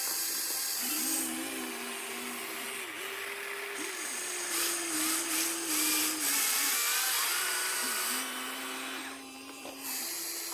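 Small electric motors of radio-controlled construction models whining as they work. The pitch shifts up and down and the whine breaks off and restarts several times, with a dip in level about nine seconds in.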